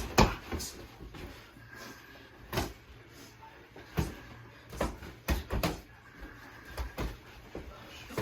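Boxing sparring: about a dozen irregular dull thuds and slaps of gloved punches and footwork.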